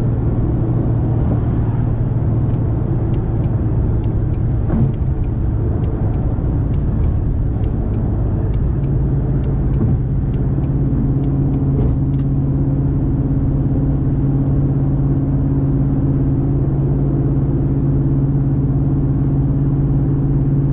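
Car engine and road rumble heard from inside the cabin while driving. The engine drone holds steady, then steps up to a higher steady pitch about halfway through. Light regular ticking, about two a second, runs through the first half.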